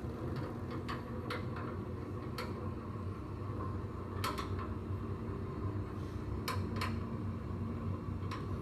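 A few light, scattered clicks and taps, with a steady low hum in the room underneath.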